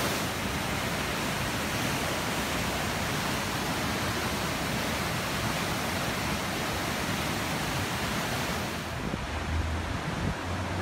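Muddy floodwater of a typhoon-swollen river rushing past in a steady, dense roar of water noise. About nine seconds in it turns duller, with low wind rumble buffeting the microphone.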